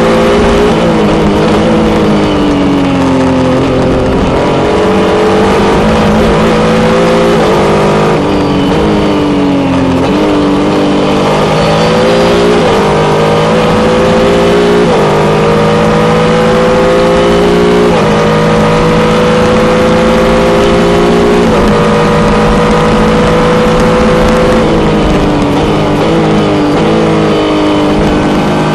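JP-LM sports-prototype race car's engine heard from the cockpit at speed. Its pitch climbs under acceleration, drops suddenly at several points as gears change, and slides down as the car slows for corners, with wind and tyre noise throughout.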